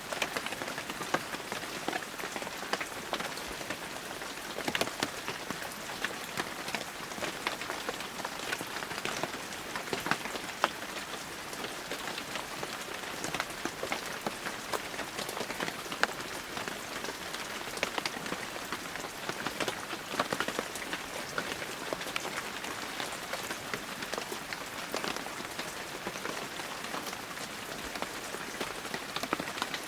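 Heavy rain falling steadily, a dense hiss of drops with many individual drop impacts ticking sharply through it.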